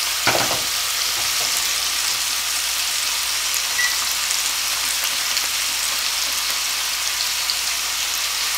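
Thin chicken breasts frying in olive oil in a skillet: a steady sizzling hiss with light crackles, and a brief knock just after the start.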